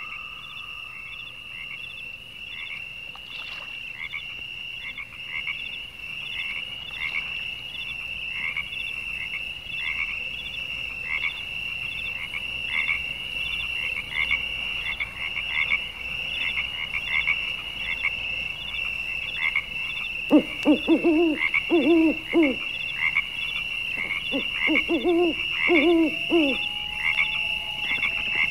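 A chorus of animal calls: a steady high-pitched trill pulsing about twice a second, over many short chirps. About two-thirds of the way in, lower calls join in quick clusters.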